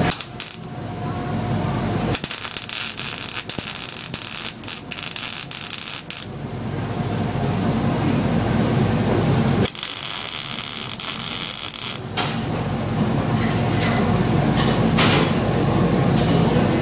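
MIG welder arc crackling on steel horseshoes in two bursts, one of about four seconds starting about two seconds in and a shorter one about ten seconds in. Between the bursts there is a low steady hum and a few scattered clicks.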